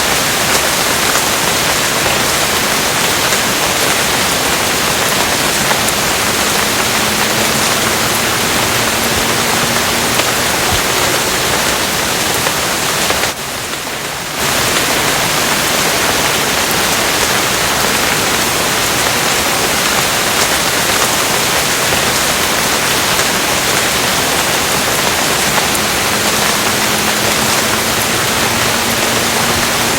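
Steady heavy rain, a dense even hiss with no separate drops standing out. It dips in level for about a second near the middle, then comes back as before.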